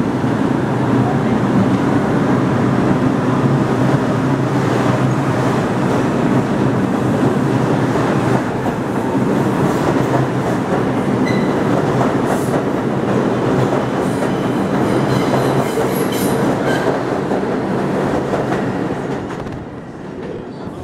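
R142 subway train pulling out of the station and running along the platform track, its motors and wheels on the rails loud and steady. The sound drops away near the end as the last car leaves.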